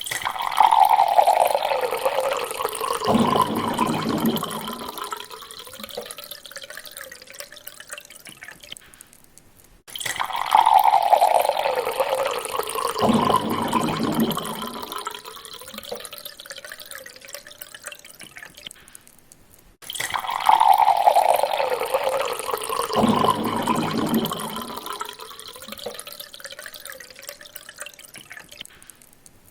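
Water being poured into a glass, repeated three times, each pour about ten seconds long. Each pour starts loud and fades away until it is quiet.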